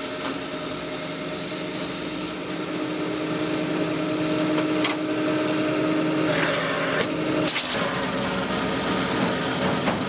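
Bandsaw sawmill running, its blade cutting through a log: a steady machine hum with a sawing hiss. The hum changes about seven and a half seconds in.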